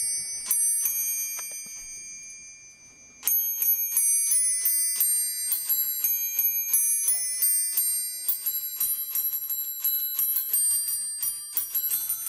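Small brass bells on a Christmas tree decoration, rung one after another by toy soldier and Santa figures, chiming out a carol note by note. The chimes thin out and fade, then a quick run of notes starts again about three seconds in.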